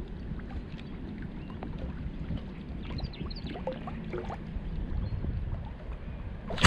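Wind buffeting the microphone in a steady low rumble, with water lapping. A few faint high chirps come about three to four seconds in, and a sharp knock lands at the very end.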